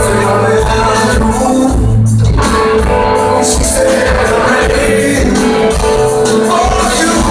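Live rock band playing loudly in an arena, with a sung lead vocal over the full band, recorded from the audience.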